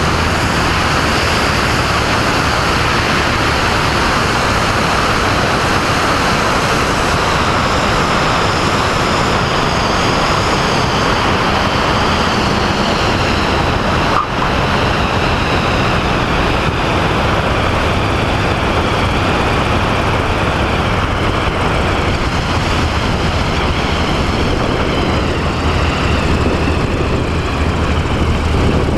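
Single-engine light aircraft's piston engine and propeller running steadily, with loud wind rush over an outside-mounted microphone, as the plane comes in to land and rolls along the runway. A brief break about halfway through.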